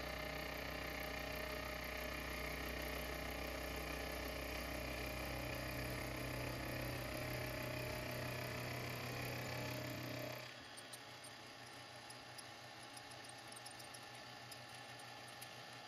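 Milling machine running with a face mill taking a slow, shallow pass along the side of a cast brass plane body, a steady machine drone with a held whine. About ten seconds in it drops to a quieter hum with faint ticks.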